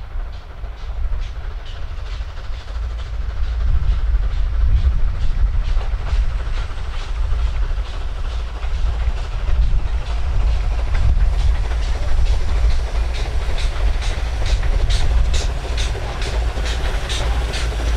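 Small steam tram engine hauling a train of passenger coaches. Its exhaust beats come at an even rhythm over a low rumble, growing stronger near the end as it draws closer.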